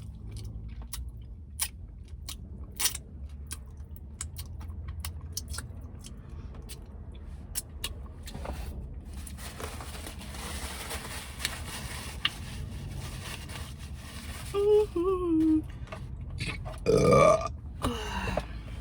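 A woman burps loudly twice near the end, a short burp that slides down in pitch and then a longer, louder one. Before them come scattered quiet clicks and a soft rustle.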